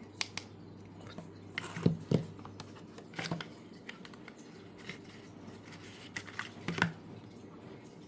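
Hands handling a boxed phone charger and its packaging: scattered clicks and taps, with the loudest knocks about two seconds in and near the end, over a low steady hum.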